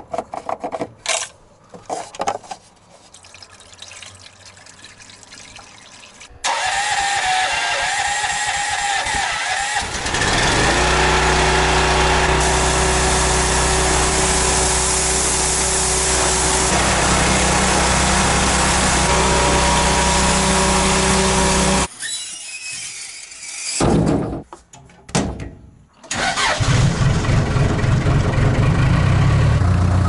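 Gas-engine pressure washer running, its high-pressure spray hissing steadily against the engine bay of a 1991 Case 580K backhoe for about fifteen seconds. Near the end, the backhoe's diesel engine runs steadily.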